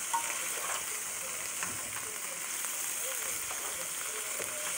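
Sliced onions sizzling as they sauté in a hot pan, turned with metal tongs that give a few light clicks and scrapes.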